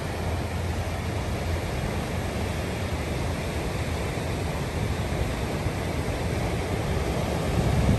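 Ocean surf breaking and washing over a rocky shore shelf: a steady rush of waves.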